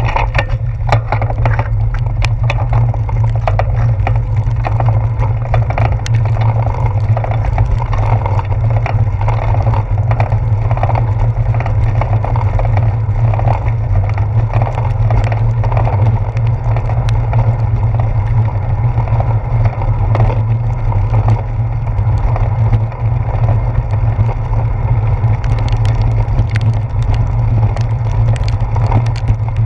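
Wind buffeting the microphone of a handlebar-mounted action camera on a moving bicycle: a loud, steady low rumble, over the hiss of tyres on a wet road, with scattered short ticks.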